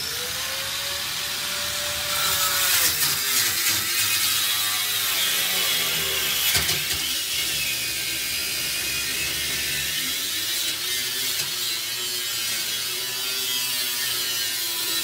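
Corded angle grinder with a cut-off wheel cutting through the steel safe door of an ATM beside the lock, running continuously with a harsh hiss of metal being cut. The motor's pitch sags and recovers as the wheel bites into the steel.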